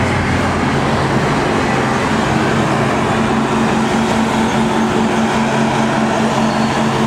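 Tractor engines idling steadily: a loud, constant drone whose low hum shifts up a little about a second in.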